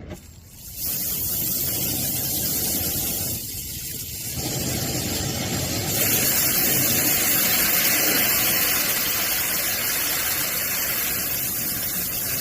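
Oxy-acetylene brazing torch, running at about 10 psi acetylene and 20 psi oxygen, burning with a steady hiss that starts about a second in, drops briefly around four seconds and comes back louder at about six seconds.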